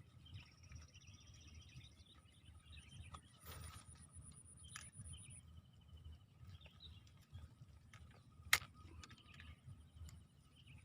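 Faint outdoor field ambience: birds chirping and trilling over a steady high whine. A single sharp click about eight and a half seconds in is the loudest sound.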